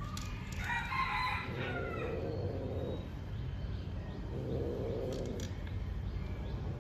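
An animal calls twice in long, drawn-out cries: the first, about half a second in, starts high and drops lower over about two seconds; the second, around four and a half seconds in, is shorter and lower. A steady low hum runs underneath.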